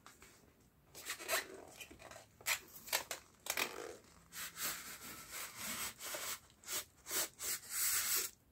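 Cardboard box flaps and polystyrene foam packing rubbing and scraping against each other as a boxed mini sewing machine is slid out of its box. Starts about a second in as a string of scrapes and rustles, densest near the end.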